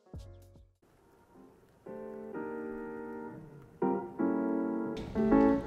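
Background music played on piano: after a short hush, soft sustained chords enter about two seconds in, with a fresh chord later and busier notes near the end.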